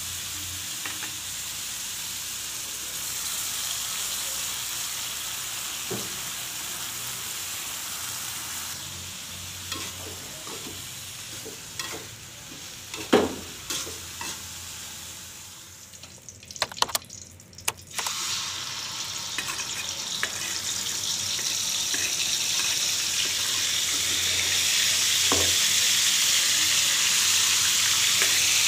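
Vegetables stir-frying in a wok: a steady sizzle with the metal spatula scraping and knocking against the pan. After a short lull with a few clicks, a louder, hissier sizzle builds as chili paste fries in the oil.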